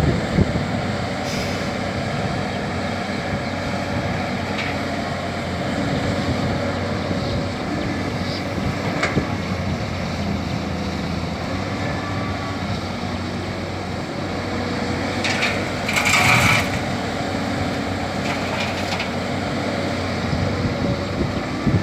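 Caterpillar 320D hydraulic excavator's diesel engine running steadily as it digs and loads soil, with a short hiss about sixteen seconds in.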